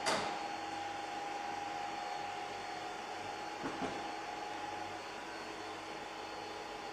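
Steady mechanical hum and hiss with a faint whine. A short knock comes right at the start, and two more come close together about four seconds in.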